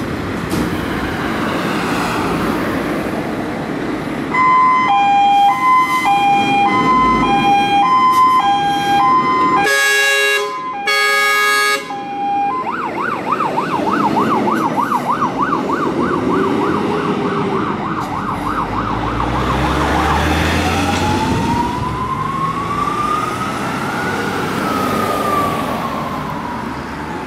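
Scania P370 fire engine setting off on an emergency run. Its diesel engine runs, then the siren plays a two-tone hi-lo pattern, the air horns sound two loud blasts, the siren switches to a fast yelp, and near the end it gives one slow rising and falling wail.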